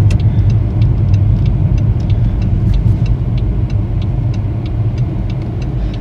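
Steady low road and engine rumble inside a moving car's cabin, with a faint light ticking several times a second.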